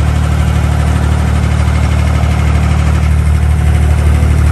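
Diesel engine of an abra water taxi running steadily under way, a loud low drone with a slight even throb.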